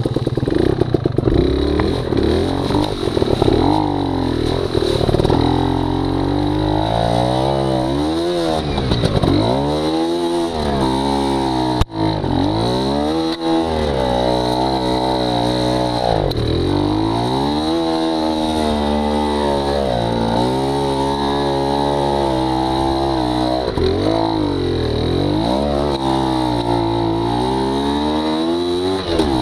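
280cc two-stroke trials bike engine being ridden, revving up and falling back again and again as the throttle is worked, its pitch rising and dropping every second or two.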